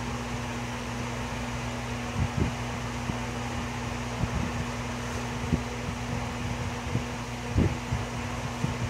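Steady hum of a running electric motor, such as a shop fan, with a few soft low knocks as the wooden bowl in the lathe chuck is handled.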